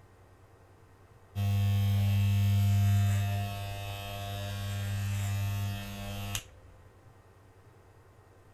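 Electric hair clippers buzzing as a head is shaved. The buzz starts suddenly about a second and a half in, drops somewhat in level partway through, and cuts off after about five seconds.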